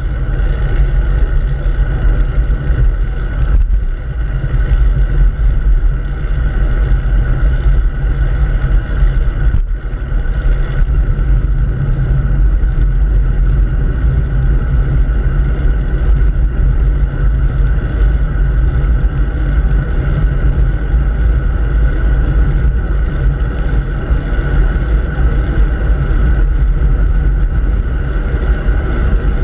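Steady wind rush over a handlebar-mounted camera's microphone, with bicycle tyre and road noise, while riding at speed.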